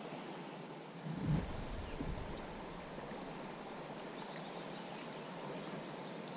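Steady rush of a shallow river's flowing water, with a dull low thump about a second in.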